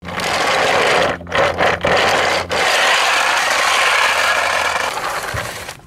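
Plastic wheels of a toy convoy truck rolling over rough asphalt: a loud, gritty rattle with a low hum underneath. It drops out briefly a few times in the first half and fades away near the end.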